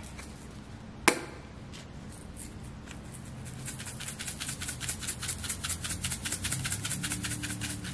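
A spice shaker's cap clicks open about a second in. Then seasoning is shaken out of the shaker in quick rattling strokes, several a second, over raw shrimp in a plastic container.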